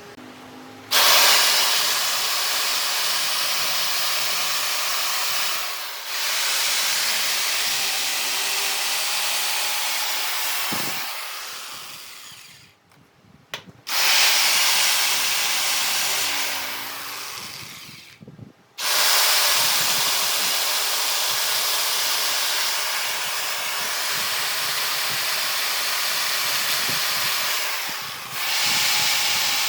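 A power tool working wood, giving a loud steady hiss. It starts abruptly about a second in, winds down and cuts out twice, and starts again each time.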